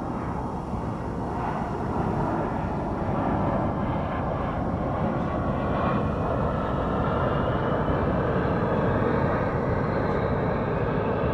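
5-inch FPV quadcopter in flight, its motors and propellers whirring under a heavy rush of air, with a faint motor whine rising in pitch partway through.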